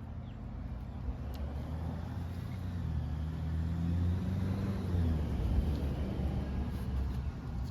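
A motor vehicle driving past, its engine hum and tyre noise rising to a peak about four seconds in and then slowly fading.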